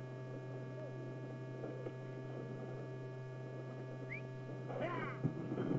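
Steady low hum of an old film soundtrack under faint background music with sliding notes. The notes grow busier about five seconds in.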